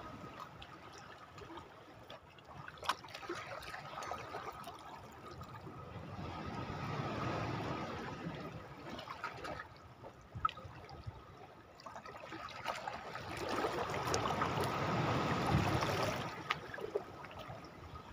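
Small sea waves lapping and trickling against the shoreline rocks, swelling twice into a louder wash, with a few faint clicks.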